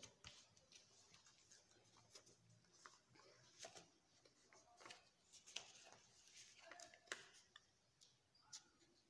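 Faint rustling and crinkling of a sheet of white paper being folded and creased by hand, in scattered short crackles.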